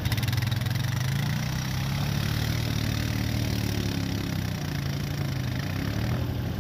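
Quad bike (ATV) engine running steadily while ploughing through deep water, over a steady hiss of churning, splashing water.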